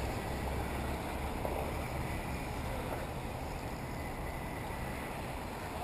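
Steady wind rumble on the microphone over a constant outdoor background.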